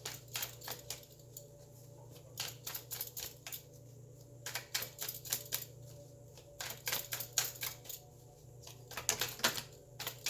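A tarot deck being shuffled and handled by hand: clusters of quick light card clicks and snaps, broken by short pauses.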